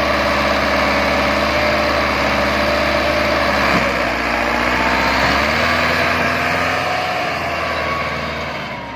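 Massey Ferguson 375 tractor's four-cylinder diesel engine working hard under full load, pulling a loaded trolley through soft soil. It runs loud and steady, easing off slightly near the end as the tractor pulls away.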